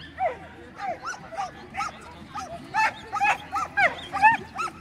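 A dog barking repeatedly in short, high yips. The barks grow louder and come faster from about halfway in, around three a second.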